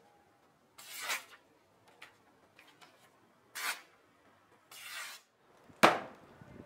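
A sharp hand-forged Bowie knife slicing through a sheet of notebook paper in three quick swishing cuts: about a second in, at about three and a half seconds, and near five seconds. Near the end the knife point is driven into a wooden board with a loud, sharp knock.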